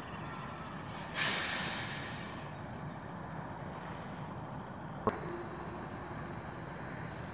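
Hi-rail boom truck's diesel engine running, with a sudden sharp hiss of released air about a second in that fades away over a second or so. A single sharp clack about two-thirds of the way through.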